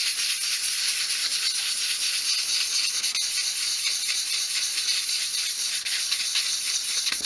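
Fine-grade sandpaper rubbed in quick back-and-forth strokes over a thin piece of obeche wood, a steady scratchy hiss, smoothing the roughness off the surface.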